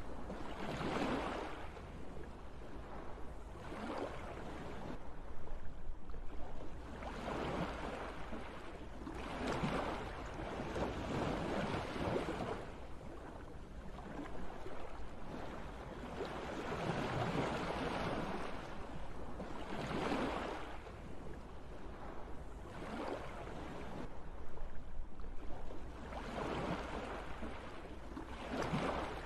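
Ocean surf breaking and washing up the beach, swelling and fading every few seconds, over a low wind rumble on the microphone.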